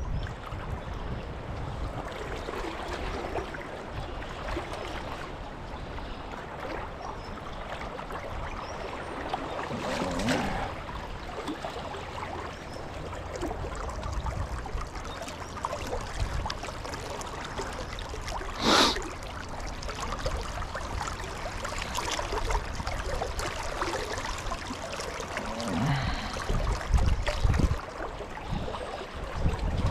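Shallow river current flowing and rippling steadily around a wading angler, with one brief sharp sound about two-thirds of the way in.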